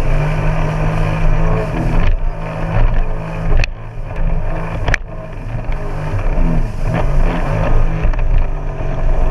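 Jet ski engine running steadily with water and wind noise, broken by two sharp clicks about three and a half and five seconds in.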